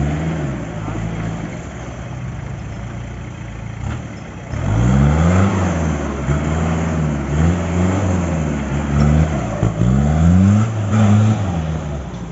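Mahindra jeep engine working under load. It runs fairly steadily for the first few seconds, then revs up and down in repeated surges about once a second as the jeep crawls up a muddy slope, and it eases off near the end.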